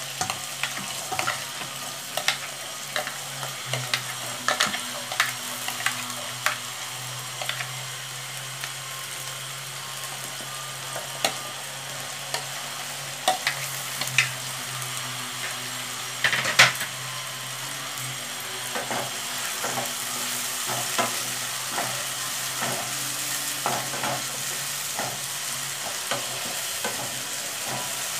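Onions and green chili sizzling in hot oil in a non-stick frying pan, with scattered sharp clicks and scrapes from a spatula stirring. Midway through, cauliflower florets are tipped into the pan, giving the loudest clatter.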